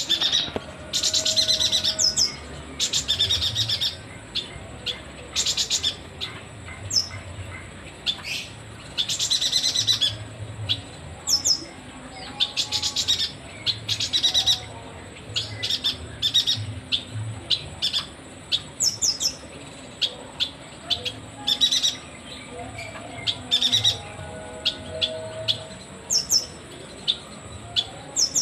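A yuhina singing vigorously: repeated bursts of rapid, high chirping trills about a second long, mixed with short, sharp down-slurred notes.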